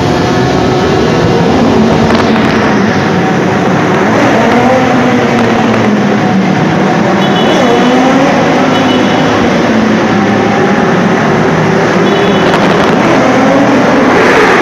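Several motorcycle engines revving together in a tunnel, their pitches rising and falling over one another.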